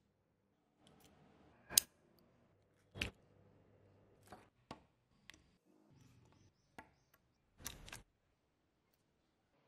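Small plastic parts being handled and clicked together: a handful of separate sharp clicks and taps, the loudest about two seconds in, with a short scuffling rustle near the end.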